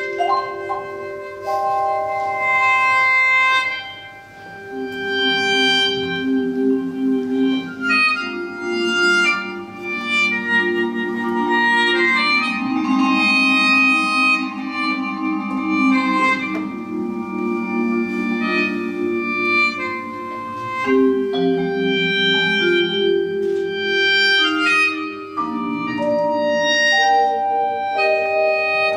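Slow instrumental music of Korean reed and wind instruments: long held reedy tones stacked into chords that change every few seconds, with shorter notes moving above them.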